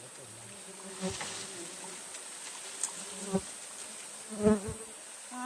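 A swarm of bees buzzing around the microphone, single bees flying close past so the hum rises and falls in pitch and loudness, loudest about four and a half seconds in.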